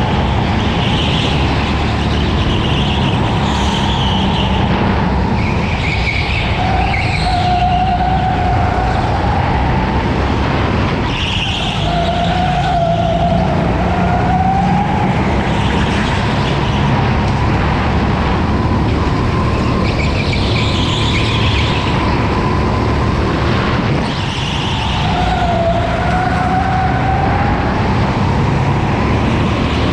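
Onboard sound of a racing go-kart lapping: the kart's motor runs steadily over a low rumble, its high whine dipping and rising again with speed through the corners.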